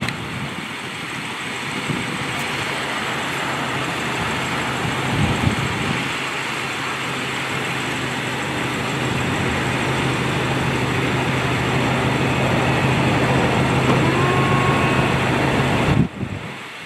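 BMW M6 convertible's power soft top closing: the roof mechanism runs with a steady hum over the car idling. Near the end there is a thump, and the level drops sharply as the mechanism stops.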